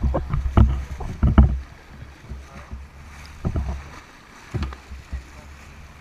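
Water splashing and slapping against the boat's side in irregular bursts, loudest in the first second and a half, with smaller splashes about three and a half and five seconds in; wind rumbles on the microphone.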